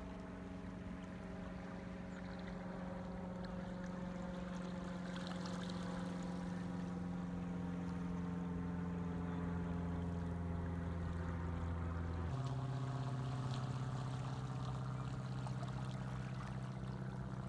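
Low, steady hum of a boat engine running, its pitch drifting slightly; about twelve seconds in the note changes abruptly to a different pitch.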